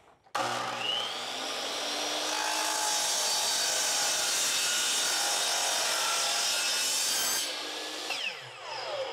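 DeWalt chop saw starting up and cutting through a metal slide-out gear rack: a sudden start with a brief rising whine, then a steady loud cutting noise for about seven seconds. Near the end the trigger is let go and the blade coasts down with a falling whine.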